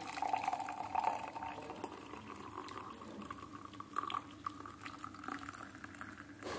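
Hot herbal decoction being poured through a tea strainer into a glass: a steady trickle and splash whose pitch rises gradually as the glass fills, with a few light clicks.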